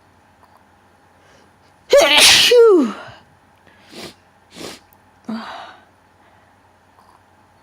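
A person's powerful, wet sneeze about two seconds in, its voiced cry falling in pitch as the burst dies away. It is followed by three shorter, fainter breathy sounds over the next few seconds.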